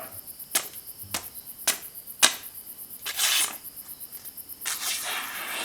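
Damascus chef's knife blade slicing through a sheet of paper: a few light clicks, then two brief hissing cuts, one about three seconds in and one near the end.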